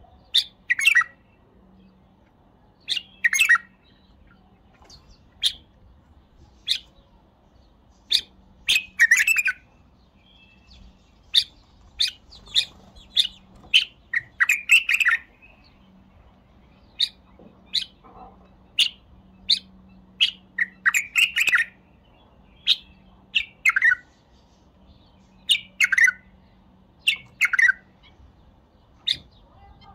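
White-eared bulbul singing: short, loud whistled notes about once a second, broken every few seconds by longer, fuller song phrases.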